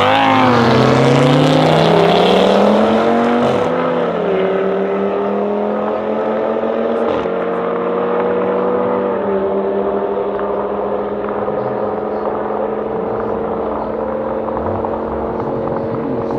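Two Audi 2.5 TFSI five-cylinder turbo engines at full-throttle acceleration down a drag strip, pulling away. The pitch climbs and then drops at each upshift, about four shifts in the first nine seconds, and then settles into a steady, fading tone as the cars head into the distance.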